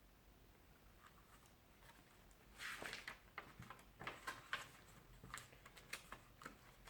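Faint paper rustling and soft clicks of a picture book's pages being turned, with the fullest rustle about two and a half seconds in.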